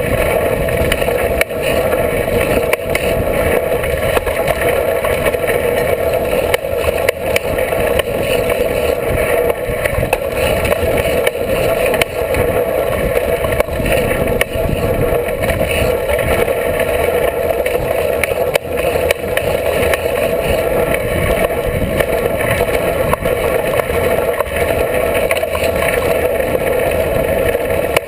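Steady rushing noise of a BMX bike racing over a dirt track, heard from a camera mounted on the bike next to its tyre: the tyre rolling on dirt mixed with wind on the microphone.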